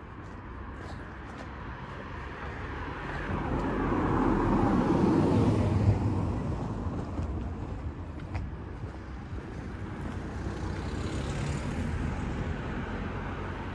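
A car driving past, growing louder to a peak about five seconds in and then fading, with steady road traffic noise running on after it.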